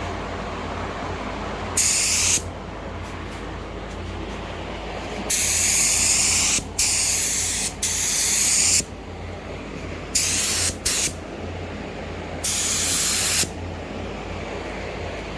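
Air spray gun laying down a first coat of 2K high-build primer in short trigger pulls: about seven bursts of loud hiss, from a fraction of a second to over a second each, starting and stopping sharply. A steady low hum runs underneath.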